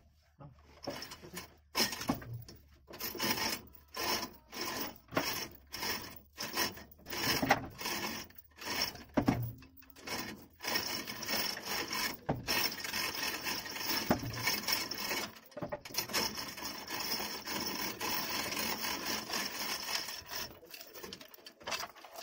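Truck transmission being pulled off the engine and lowered on a chain hoist. Irregular scraping and rubbing strokes come first, then a steadier rasping noise for several seconds in the second half.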